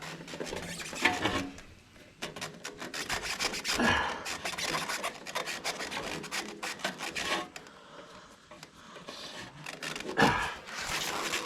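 Irregular rubbing, scraping and clicking of a scooter's cables and cover being pushed and worked loose by hand, with a louder bout near the end.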